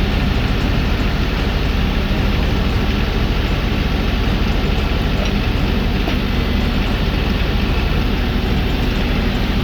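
Tractor engine running steadily at low revs.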